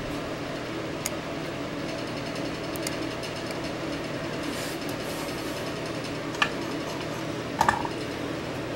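Steady low mechanical hum, with a few light ticks and taps from soldering work on a circuit board. The sharpest taps come about a second in and near the end.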